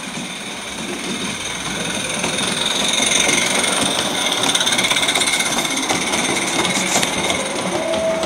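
Large-scale live-steam model steam locomotive running along its track with a rapid mechanical rattle and hiss, getting louder over the first few seconds as it comes close.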